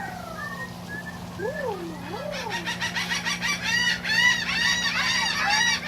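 Laughing gulls cackling: a few slow gliding calls, then from about two seconds in a fast, louder run of repeated rising-and-falling 'ha' notes.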